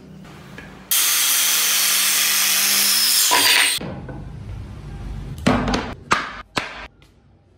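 About three seconds of loud, even rushing noise, then wooden planks knocking as a board is lifted from a stack: a low rumble and three sharp wooden knocks.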